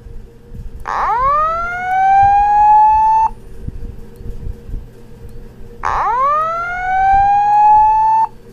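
Wheelock ET-1080-SLM-24 fire alarm speaker sounding the Simplex alert tone: two loud rising whoops, each about two and a half seconds long, climbing steeply then levelling off before cutting off abruptly. The first starts about a second in and the second about six seconds in. This is the alert that precedes a voice evacuation message.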